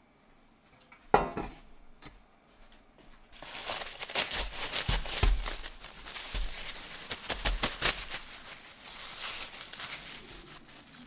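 One sharp knock about a second in, then plastic cling wrap crinkling and rustling as it is handled and peeled off a block of boneless chicken thighs in a stainless steel tray, with a few dull knocks against the tray.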